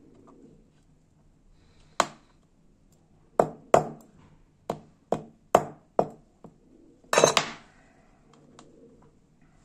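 Small hammer tapping a tiny metal part of a lighter's gas refill valve held in tweezers: about seven sharp metallic taps at uneven intervals, then a brief clatter about seven seconds in.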